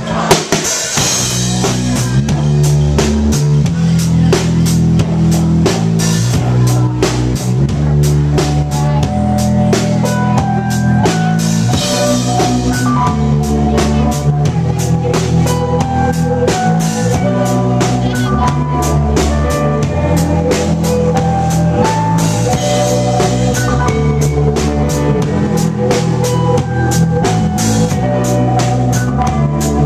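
Rock band playing live: a drum kit keeps a steady beat under bass and guitar, with cymbal crashes now and then. This is the instrumental opening of the song, with no singing yet.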